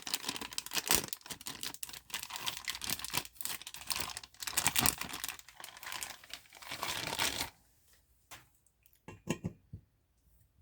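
Packaging wrap crinkling and rustling as it is pulled off and crumpled by hand, stopping after about seven and a half seconds, followed by a few light knocks.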